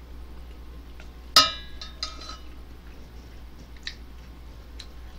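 A utensil knocks once against a stainless steel ramen pot, giving a sharp metallic clink that rings briefly, about a second and a half in. A few faint clicks of eating follow.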